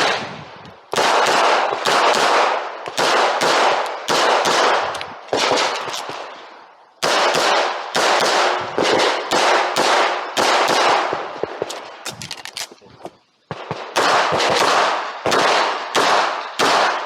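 Handgun shots fired in quick strings during a timed practical-shooting course of fire, each shot sharp and ringing out, with short breaks about six and about thirteen seconds in.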